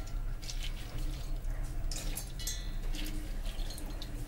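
A steel spoon scooping wet, soaked moong dal out of a glass bowl and tipping it into a steel mixer-grinder jar: irregular scrapes, clinks and wet drips, over a steady low hum.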